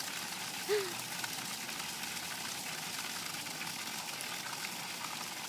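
Steady rush of running water. One short voice sound cuts in briefly about a second in.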